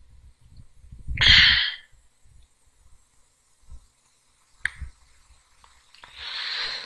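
A man breathing into a close microphone: a loud exhale about a second in and another breath near the end, with a single sharp click in between.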